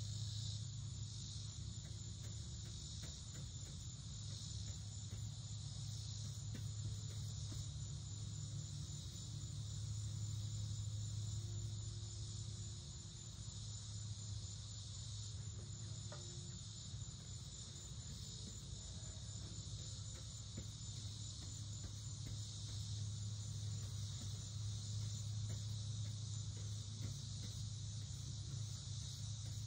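A steady high-pitched insect chorus, crickets by their sound, runs on without a break over a steady low hum.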